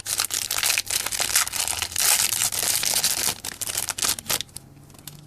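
Foil booster-pack wrapper being crinkled and torn open by hand: a dense run of quick crackling rustles that dies down about four seconds in.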